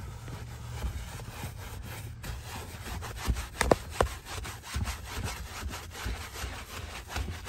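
Small detailing brush scrubbing spray cleaner into a car seat's upholstery: repeated back-and-forth rubbing strokes, with a few louder scratches around the middle.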